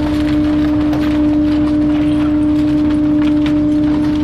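Rear-loader garbage truck's hydraulic packer blade compacting wooden furniture boards in the hopper: a steady whine from the hydraulics under load, with the wood cracking and snapping.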